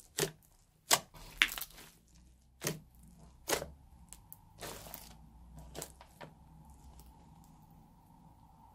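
Crunchy floam slime packed with foam beads being pressed and stretched by hand, giving sharp crackles and pops about once a second. The pops thin out over the last couple of seconds.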